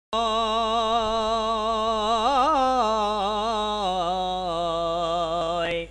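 A male voice holds one long wordless sung note with vibrato, with no instruments, as the opening of a Bengali Islamic gojol. The pitch turns in a quick ornament about halfway through, settles lower, then sweeps up and stops just before the end.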